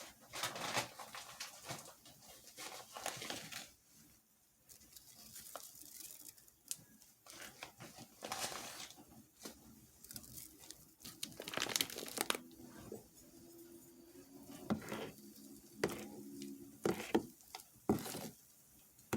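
Food-preparation handling sounds: irregular crinkling and rustling with scattered light knocks. A low steady hum joins them for a few seconds past the middle.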